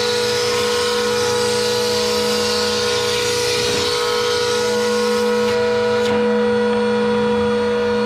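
Table-mounted router with a spiral flush-trim bit running at a steady high pitch, cutting out the inside of a speaker adapter ring as the bit's bearing rides a template. The cutting hiss stops about five and a half seconds in, leaving the router spinning freely.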